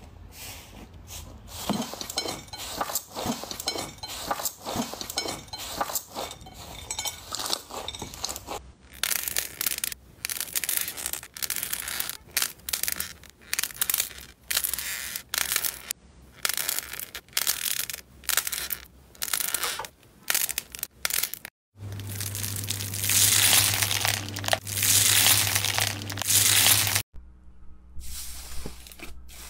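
Hands squeezing, poking and tearing fluffy slime: dense runs of small crackles and pops, then repeated short squishing bursts, with a louder stretch of crackling about three-quarters through.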